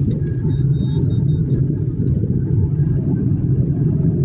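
Kia Picanto being driven on a road test, its engine and road noise a steady low rumble. The car is freshly tuned with its throttle calibrated and runs smoothly.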